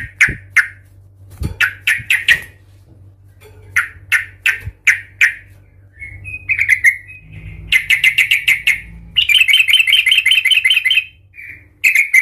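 Yellow-vented bulbul giving sharp, loud 'chuk' calls in quick groups of three or four. About eight seconds in they speed into a fast run and then a rapid chattering trill lasting about two seconds. These are the agitated, combative 'cuk cuk' calls of a bird worked up to fight.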